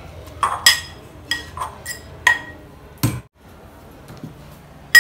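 Stainless-steel kitchenware clinking: a small steel container and a spoon knocking against a steel cooking pot while ground ginger is tapped out into batter. There are about six sharp, ringing clinks in the first two and a half seconds, then a dull thump about three seconds in.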